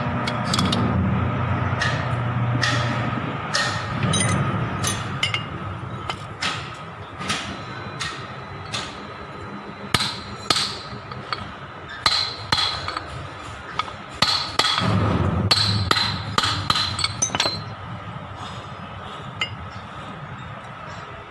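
Hammer blows on a tubular drift, driving a ball bearing down onto the splined shaft of a Kubota L1802DT front-axle gear-case cover: a long run of sharp metallic knocks, irregularly spaced, coming thickest in the middle and stopping a few seconds before the end.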